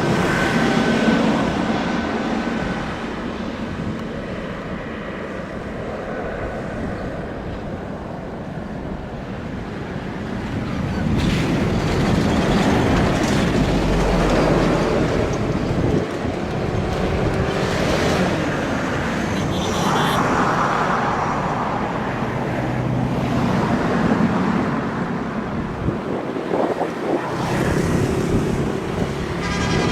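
Steady roar of an airliner's engines mixed with gusting wind noise, growing louder about eleven seconds in.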